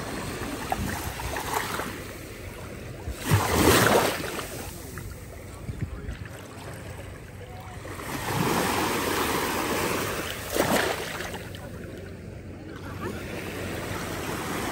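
Sea waves breaking and washing at the shore, swelling louder several times, loudest about three and a half seconds in.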